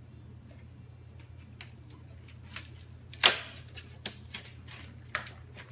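Fingers picking open a perforated door on a cardboard Advent calendar: scattered small clicks and cardboard snaps, the sharpest about three seconds in.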